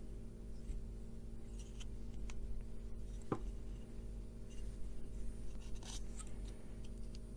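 Small ticks and scrapes of diode leads being handled and fitted into a printed circuit board, with one sharper click about three seconds in, over a steady low hum.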